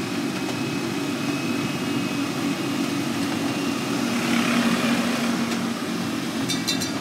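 Casey Jr. Circus Train rolling along its track: a steady low rumble with a faint hum. A hiss swells briefly about four seconds in as the car passes under a stone arch, and a run of light clicks comes near the end.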